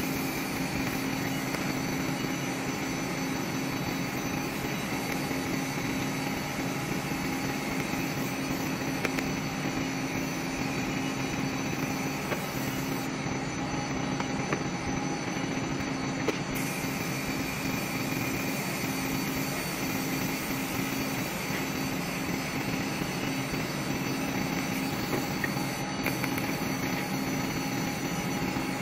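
TIG welding a socket onto a flange: a steady machine drone with a constant low hum under the faint hiss of the arc. The hiss stops for a few seconds about halfway through while the arc is off, then resumes.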